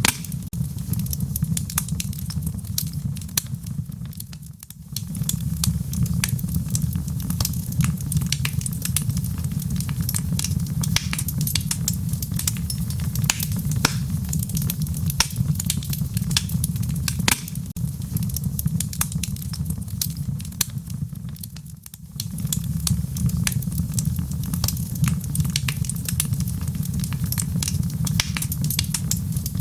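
Wood fire burning in a fireplace, crackling with frequent sharp pops and snaps over a steady low rumble. The rumble briefly drops away twice, about four seconds in and again a little past twenty seconds.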